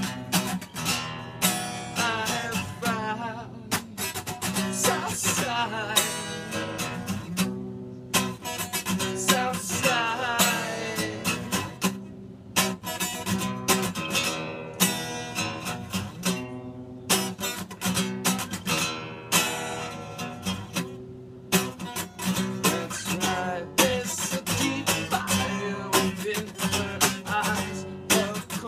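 A man singing while strumming an acoustic guitar, with short breaks in the vocal line where only the guitar plays.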